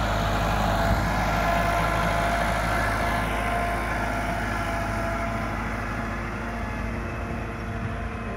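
Massey Ferguson 385 tractor's four-cylinder diesel engine running steadily under load as it pulls a laser land leveler through loose soil. It passes close and then moves away, growing fainter and duller over the second half.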